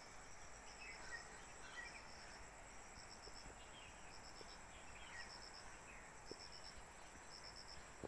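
Faint outdoor ambience of insects chirping in short pulsed trills about once a second, with a few faint bird chirps.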